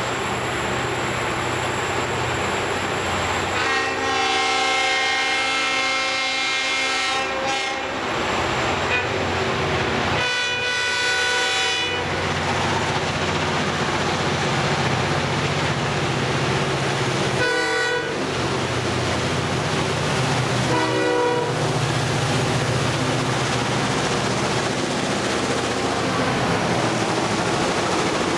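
Diesel locomotives of a loaded grain train, led by the bulldog-nosed CLF5, run through and sound the horn four times: a long blast, a shorter one, then two short ones. The engines' rumble and the train's running noise grow louder as the locomotives draw near and pass.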